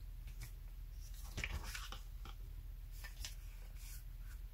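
Faint handling of paper and cardstock: a few soft rustles and light taps, most of them about a second and a half in, over a low steady hum.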